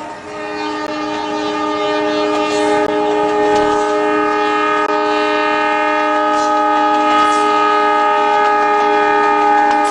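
Metre-gauge diesel train's horn held in one long, steady blast, getting louder over the first few seconds as the train approaches.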